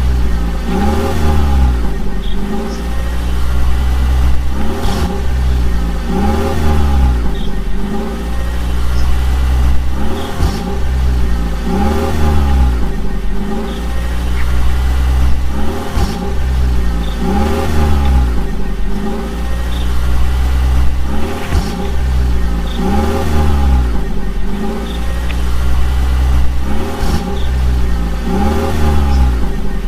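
Vehicle engine sound revving up and down in a regular cycle, about once every two seconds, over a steady deep rumble.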